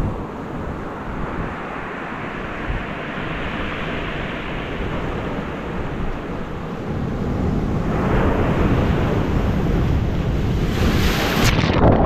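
Sea waves breaking against rocks along a beach: a continuous wash of surf that swells louder about two-thirds of the way in as a bigger wave comes in and breaks.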